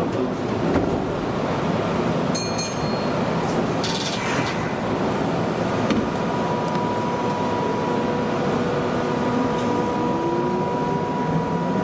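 Meitetsu 3000-type electric train running, heard from its front end: a steady rumble of wheels on rail. A short high chime comes about two and a half seconds in. A steady whine starts about halfway, with a second tone rising slowly near the end.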